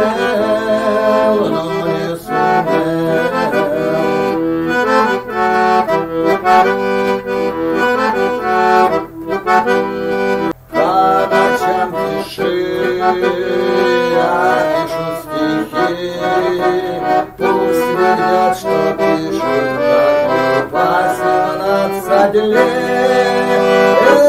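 Button accordion playing an instrumental passage of the song's melody over chords, between sung verses, with one very short break a little before halfway.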